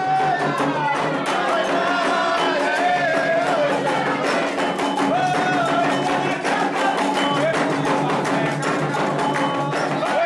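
Candomblé ritual music: singing over atabaque hand drums and other percussion, with dense, continuous drum strikes under a wavering sung melody.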